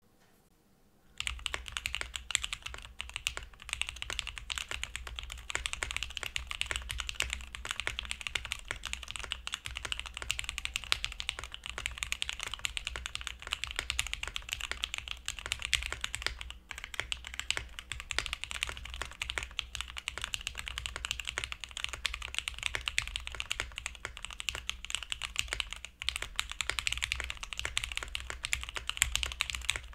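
Fast, continuous typing on a Piggy60 custom mechanical keyboard with lubed and filmed SP Star Meteor White switches and no foam, a clacky keystroke sound. It starts about a second in, after a moment of near silence, and drops off briefly twice.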